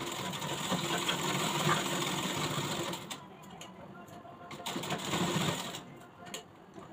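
Black domestic sewing machine stitching: a run of about three seconds, a short pause, then a second burst of stitching of about a second and a half.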